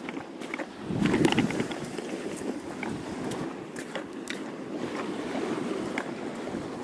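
Small waves washing up on the beach with wind buffeting the microphone, swelling to a louder wash at about one second, with scattered light clicks over it.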